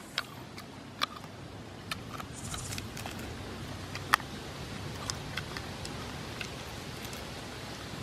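Scattered sharp little clicks and light rustling over a steady outdoor background, the loudest click about four seconds in.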